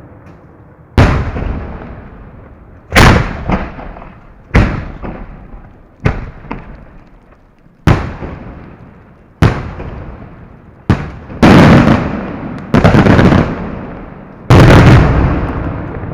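Fireworks display heard at close range: about a dozen loud booms at irregular intervals, each echoing away, the last few near the end drawn out for about a second each.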